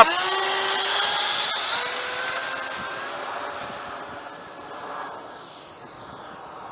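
The 64 mm electric ducted fan of a Freewing F-18 RC jet running at full throttle on takeoff: a loud, high whine that sinks slightly in pitch and fades over the first few seconds as the jet climbs away.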